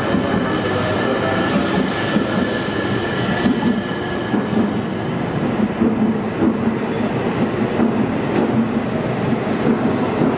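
Shinkansen train, a coupled set with an E5-series unit, moving past the platform: steady rolling noise of wheels and running gear, with a faint high whine in the first few seconds that fades away.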